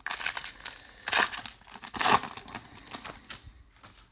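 Foil wrapper of a trading card pack being torn open and crinkled, in a few sharp rips. The loudest come about one and two seconds in, then it tapers to faint rustling.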